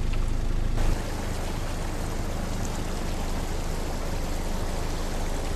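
Steady rushing of water from a vehicle driving through floodwater, with a low engine rumble that drops away abruptly about a second in, leaving an even rushing hiss.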